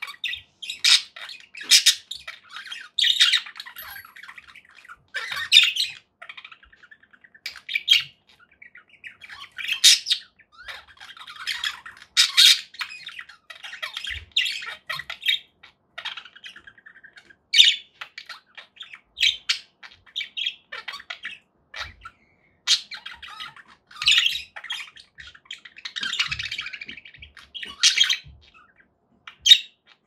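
Several pet budgerigars chattering: a continuous warbling twitter with short, loud, sharp calls every second or two.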